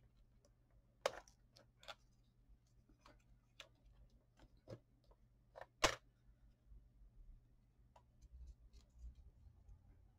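Irregular faint taps and clicks of a small piece of wallpaper and a plastic bone folder being handled and pressed on a scoring board while folding, the sharpest about six seconds in.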